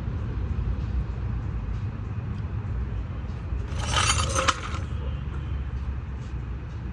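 Loose metal objects clinking and jingling briefly, about four seconds in, over a steady low rumble.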